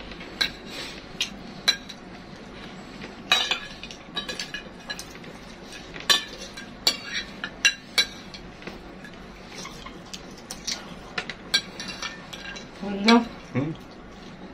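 Metal spoons clinking and scraping on ceramic plates, irregular sharp clicks throughout as two people scoop rice and bread. A brief vocal sound near the end.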